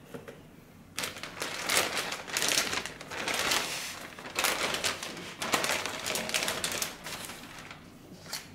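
Clear plastic bag crinkling and rustling in irregular bursts as it is pulled off a car radio head unit, starting about a second in.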